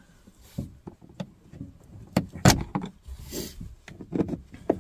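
A handful of separate plastic clicks and knocks as wiring plugs at the A-pillar of a 2008 Dodge Ram 2500 cab are worked loose by hand. The loudest knock comes about two and a half seconds in, with a brief rustle a little later.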